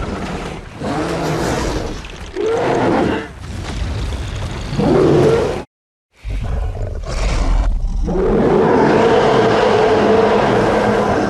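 Red Bluster sea-monster sound effects: a series of growls and roars, then a short silent break about six seconds in, then one long, sustained roar near the end.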